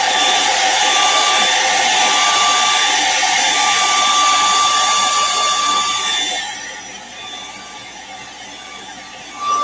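Handheld hair dryer blowing steadily with a high motor whine while heat-setting wet paint on a lure between coats. It gets quieter about six seconds in, then is switched off near the end, its whine falling as it spins down.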